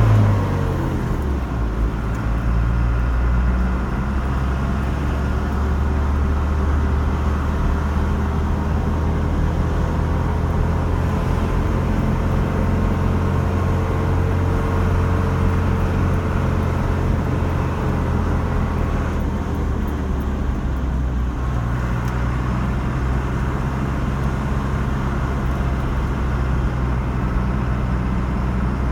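Car driving along a road: steady low engine and tyre noise, with the engine pitch falling and the level easing right at the start.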